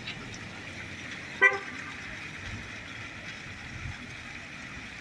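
A single short car horn toot about a second and a half in, over a steady background of street noise.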